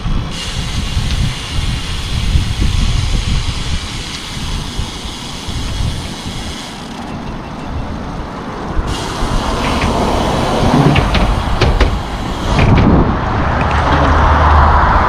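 Wind buffeting the microphone of a camera on a moving bicycle: a heavy, uneven low rumble, with a steady higher hiss that cuts in and out twice, a few light clicks and a louder gust near the end.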